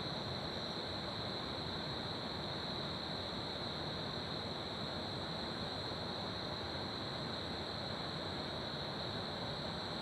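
Crickets chirping in a continuous chorus, an unbroken high trill, over the steady rushing of a river.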